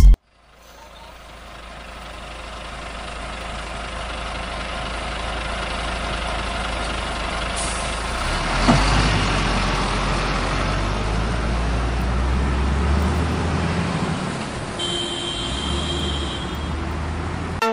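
A heavy road vehicle's engine running steadily, fading in over the first few seconds, with a short high tone about fifteen seconds in.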